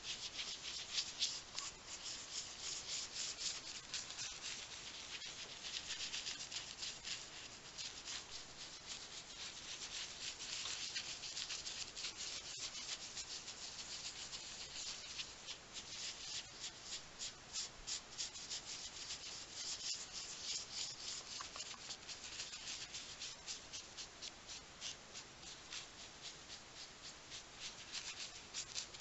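Paintbrush scrubbing a wet watercolour wash across a journal page: a long run of quick, scratchy brush strokes on paper, several a second.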